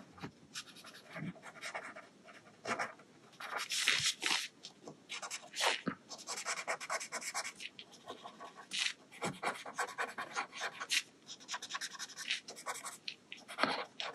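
Paper blending stump (estompe) rubbing graphite shading into a paper Zentangle tile, spreading the pencil to soften it: an irregular series of short, scratchy strokes.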